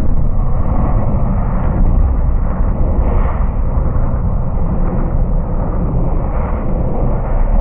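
Steady, deep, muffled noise made for sleep, its energy mostly in the bass with no highs, swelling and easing slightly.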